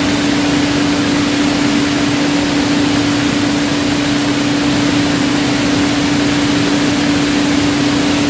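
Bottling-line chain conveyors and their drives running: a steady machine hiss with a constant hum.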